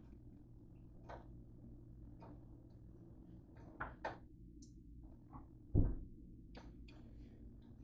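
Scattered light clicks and knocks of household items being handled, with two sharper knocks about halfway through and one dull, heavier thump about three-quarters through, over a low steady hum.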